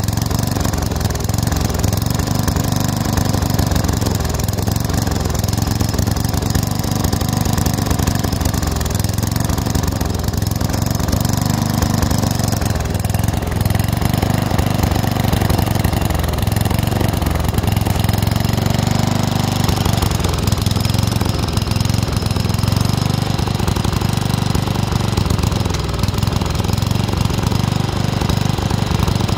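Weed Eater riding lawn tractor's engine running steadily while the tractor tows brush on a strap, with small changes in its sound as it pulls and turns.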